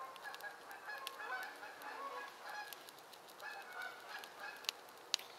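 A flock of Canada geese honking, many overlapping calls in the distance, with two sharp clicks near the end.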